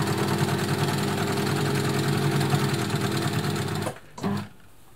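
Elna Lotus TSP sewing machine running steadily, stitching a zigzag through about eight layers of fabric. It stops just before four seconds in, then gives one brief short run.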